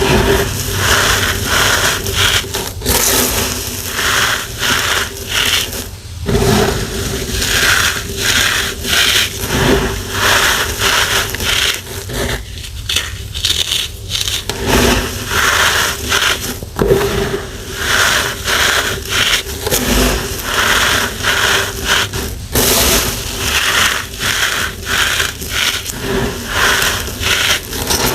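Packed chalky powder being crushed by hand, crunch after crunch in a quick, uneven rhythm with a few short pauses.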